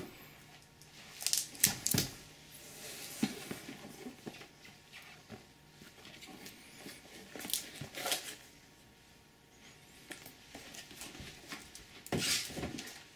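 Handling noises from a shrink-wrapped cardboard model kit box being tipped over, turned in the hands and moved away: a scattering of soft knocks and rustles, busiest near the end.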